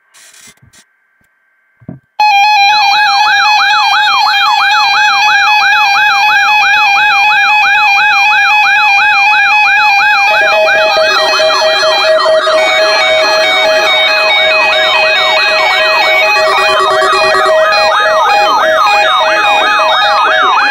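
Electronic alarm siren from a weather alert radio, starting after about two seconds: a loud, rapid warble sweeping up and down about five times a second. A steady lower tone joins about halfway through, and another briefly sounds beneath it.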